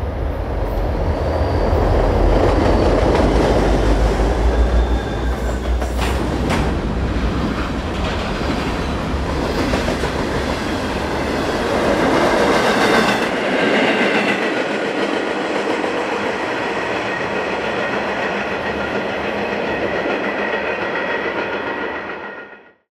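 Freight train passing close by: a deep diesel locomotive rumble for the first several seconds, then the cars rolling past with wheels clicking over the rail joints and a high steady wheel squeal in the second half. The sound cuts off abruptly near the end.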